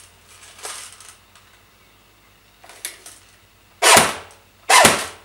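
AUG-style airsoft electric gun firing two single shots in semi-auto, a little under a second apart, each a sharp crack from the gearbox and BB. The owner calls the semi-auto action rough and puts it down to the switch from a 9.6 V NiMH to a 7.4 V battery.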